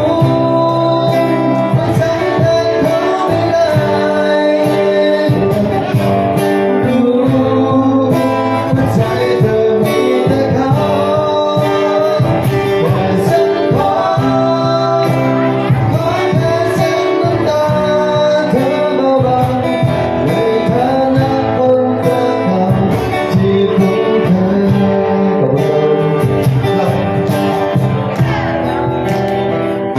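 A man singing a song live with guitar accompaniment.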